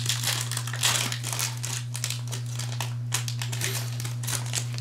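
Foil wrapper of a trading-card pack crinkling as gloved hands open and handle it, a quick irregular crackle that is densest in the first second. A steady low electrical hum runs underneath.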